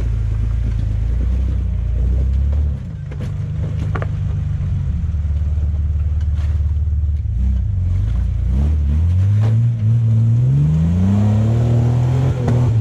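Off-road 4x4's engine running at low revs and working steadily, then revving up in a few rising climbs in the last few seconds. A few sharp knocks sound over it.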